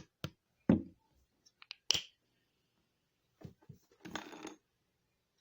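Objects being handled: a few knocks and clicks, one heavier thump and one sharp click, then a brief rustle about four seconds in.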